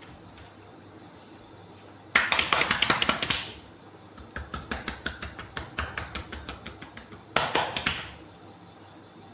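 Hands slapping and patting on skin during a massage: two bursts of rapid slaps, with a quieter run of about five pats a second between them.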